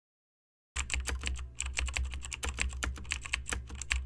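Computer keyboard typing sound effect: a rapid run of clicking keystrokes with a low hum underneath, starting abruptly nearly a second in.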